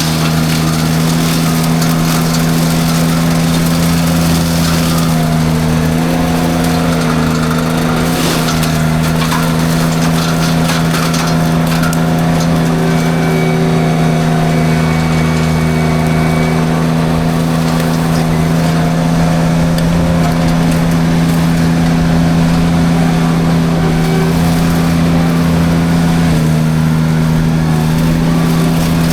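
Derette V1000 mini skid steer running steadily at working speed, its engine and hydraulically driven forestry drum mulcher droning evenly while clearing light brush.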